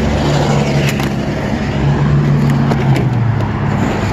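A vehicle engine running steadily at idle, its low hum dropping slightly in pitch about three seconds in, with a few sharp knocks.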